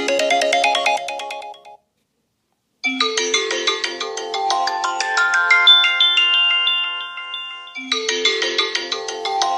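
iPhone ringtones played in turn. The first, a quick chiming melody, ends under two seconds in. After about a second of silence a second ringtone starts: a bright melodic phrase that begins again about five seconds later.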